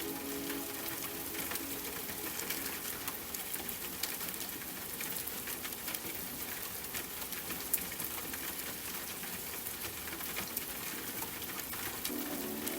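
Steady rain falling, an even hiss with scattered sharp drop ticks. Soft sustained music tones fade out about a second in and come back near the end.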